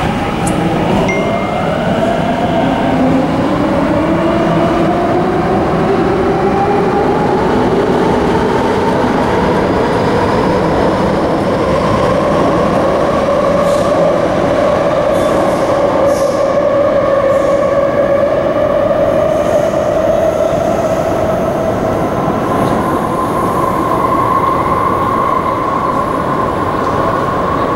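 MTR Kwun Tong Line electric train departing an underground platform. Its traction motors whine in several tones that rise slowly in pitch as it accelerates away into the tunnel, over the steady rumble of the wheels.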